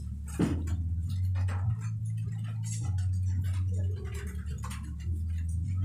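Low steady hum that steps up and down in level about every second, with scattered light ticks and clicks over it.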